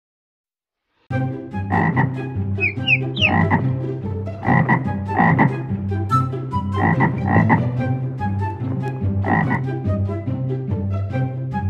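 Repeated frog croaks, short rasping calls a second or so apart, over steady low held tones. They start suddenly about a second in, after silence, with a few quick rising chirps among the early croaks.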